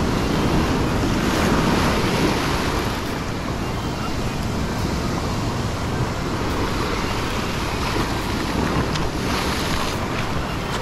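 Ocean surf washing and breaking over the rocks below, a little louder in the first couple of seconds, with wind buffeting the microphone.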